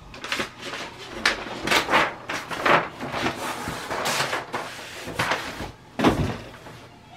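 Large sheets of chart paper rustling and crackling as a page is lifted, flipped over and smoothed down, in a run of rough swishes, with a louder thump about six seconds in.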